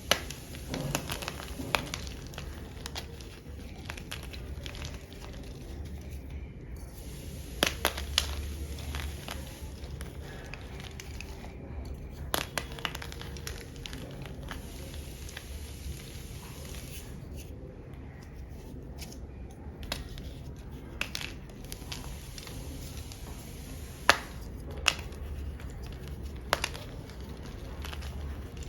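Chunks of black-dyed gym chalk being crushed: scattered crisp cracks and crunches, some sharp snaps standing out, over a faint low hum.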